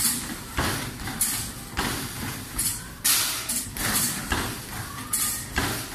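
Arcade basketball shooting machine in play: basketballs thudding against the backboard and hoop in quick succession, about ten hits at an uneven pace.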